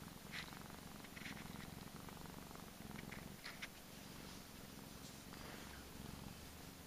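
Persian cat purring steadily while being scratched about the head and chin, with a few brief rustles as the fingers rub through its fur.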